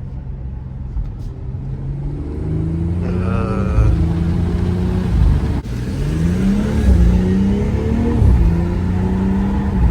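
Car engine running, its pitch stepping up and then rising and falling as the car accelerates and slows.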